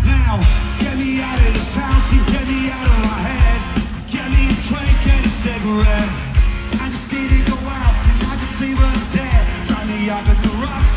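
Live rock band playing a pop-punk song: a male lead vocal sung over electric guitar, bass and drums, with a regular kick-drum beat.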